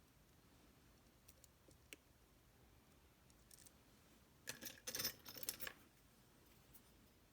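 Small metal clicks and scraping from a Tesa TK100 lock cylinder and lock-picking tools being worked by hand. A few faint ticks come first, then a burst of clicking and rattling about four and a half seconds in that lasts about a second.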